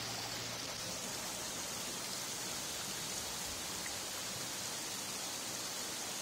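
Steady rush of running water, an even hiss with no pauses.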